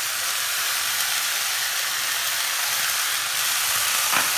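Chopped tomatoes and vegetables sizzling steadily as they fry in oil in a steel pan, with one light tap near the end.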